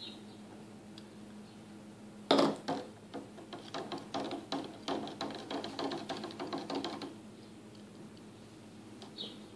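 Metal spoon stirring oil and water in a clear plastic cup, clinking against the cup's sides: one sharp knock about two seconds in, then a run of quick clicks, about three or four a second, stopping about seven seconds in.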